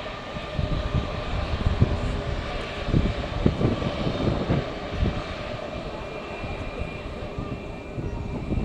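Airliner jet engines running with a steady whine, while strong gusts of wind buffet the microphone with low rumbling blasts during the first half.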